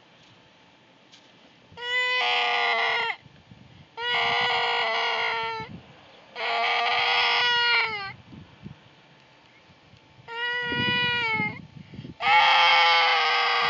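Goat bleating over and over: five long bleats held at a level pitch, each about a second and a half, with short pauses between.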